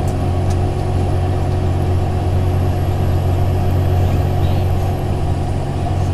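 Thomas Saf-T-Liner HDX school bus's Cummins ISL 8.9 inline-six diesel running, a steady low drone heard from inside the passenger cabin.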